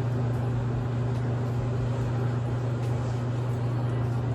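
Steady low mechanical hum over an even hiss, from a running appliance.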